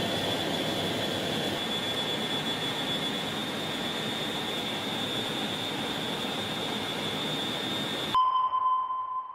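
Cockpit noise of a B-52H bomber in flight: a steady roar of engines and airflow with a steady high whine over it. It cuts off suddenly near the end, and a single sonar-style ping rings out and fades.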